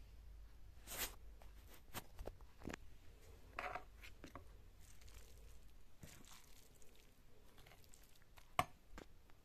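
Metal serving spoon stirring and scooping fried cabbage and beef in a plastic plate: scattered soft clicks and scrapes, the sharpest click about eight and a half seconds in.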